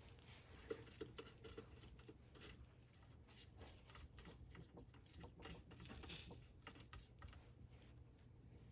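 Faint, irregular little taps and dabs of a pastry brush spreading oil over the starch-coated frog legs in the air fryer basket, over a low steady hum.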